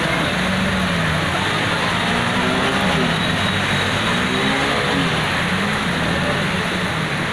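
Floodwater rushing steadily through a street, with scooter and motorbike engines revving up and down as the bikes are ridden and pushed through the deep water.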